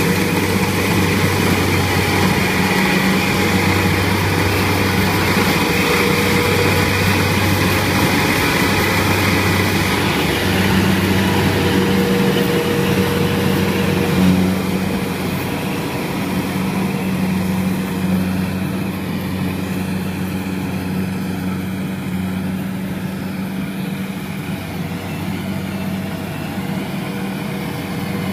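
Diesel engine of a small Kubota crawler rice combine harvester running steadily as the machine works through the paddy, a constant low hum that grows a little quieter about halfway through as it moves away.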